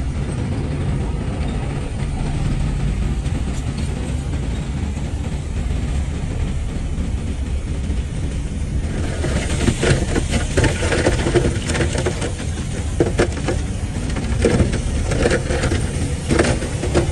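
Heavy earth-moving machinery's diesel engine running with a steady low rumble. About halfway through, irregular metallic clanking and squeaking joins in and grows busier.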